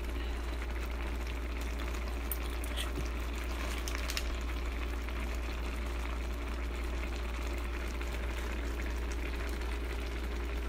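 Spicy Korean seafood-and-kimchi noodle broth simmering in a pan with a steady hiss, and a few light clicks of a spoon against the pan in the first four seconds.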